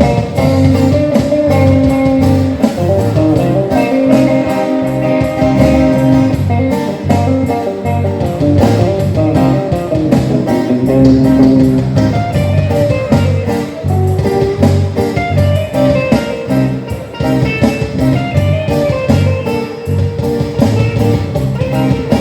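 Live rock band playing an instrumental passage with no singing: guitar over bass and a steady drum beat.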